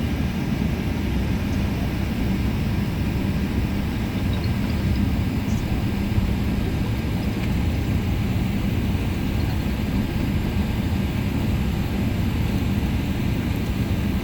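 Steady rumble of a jet airliner heard from inside the cabin as it taxis after landing, with a constant low hum.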